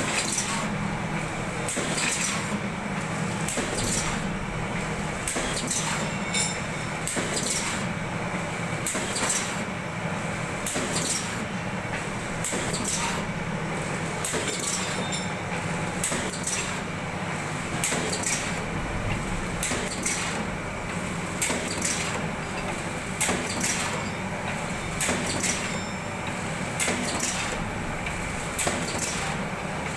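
Automatic vertical pouch packing machine running: a steady motor hum overlaid with regular mechanical clacks, about one per second, as it cycles.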